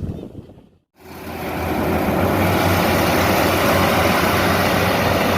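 Combine harvester engine and machinery running steadily at working speed. The sound breaks off to silence just before a second in, then fades back in and holds steady.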